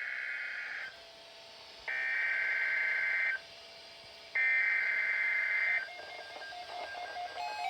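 Emergency Alert System SAME header from a NOAA Weather Radio broadcast: three bursts of warbling digital data tones, each about a second and a half long with a second's gap between them, the first already under way. The bursts carry the coded alert header that starts an EAS alert. Fainter, broken tones follow near the end.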